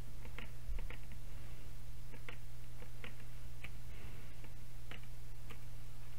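About eight irregularly spaced clicks of a computer mouse and keyboard during text editing, over a steady low hum.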